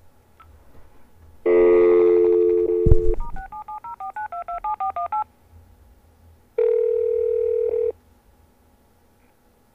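Telephone dial tone, a click, then a quick run of touch-tone beeps as a number is dialed, followed by one burst of ringing tone as the call rings through.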